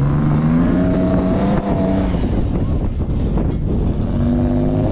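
Toyota FJ Cruiser's engine revving hard under load while climbing a soft sand slope. The pitch climbs over the first two seconds, dips, then rises again near the end.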